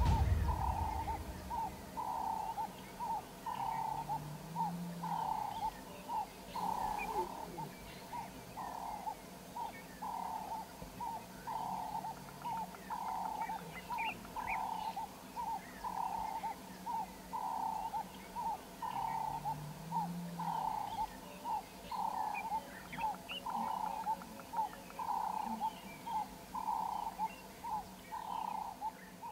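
Wild animal call: a short mid-pitched note repeated steadily about once a second, with faint higher chirps scattered around it.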